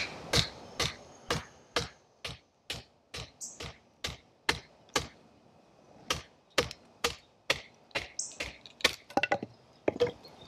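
A wooden baton knocking on the spine of a Battle Horse Knives Tree Frog folding knife, driving its blade down to split a small log: steady knocks about two a second, a short pause about halfway, and a quicker run of strikes near the end.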